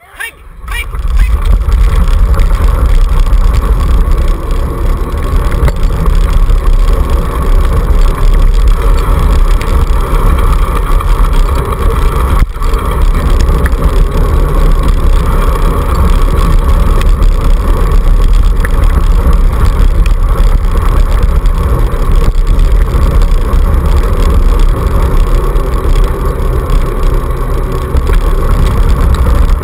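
Two-dog dryland kick scooter rolling fast over a dirt track, a loud steady rumble of wheel noise and wind buffeting the handlebar-mounted camera. It swells up in the first second or two as the huskies pull away from the start, with a single knock about twelve seconds in.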